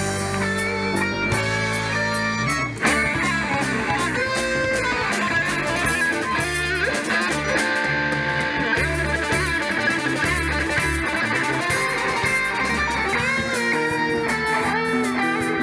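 A rock band playing: electric guitars over bass guitar and drums, with a steady beat.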